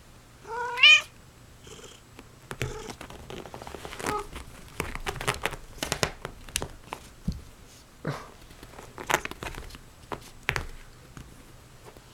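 A cat gives one short rising meow about half a second in. Scattered light knocks, scratches and rustles follow from cats moving about and playing.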